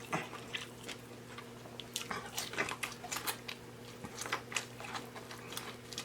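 Close-up chewing and wet lip-smacking as a man eats seafood boil in sticky sauce, a quick run of irregular smacks and clicks, with a steady low hum underneath.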